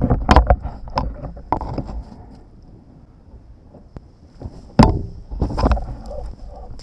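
Wind rumble and knocks on an action camera's microphone: a cluster of knocks in the first two seconds, then a hard knock a little before five seconds in, followed by more rumble.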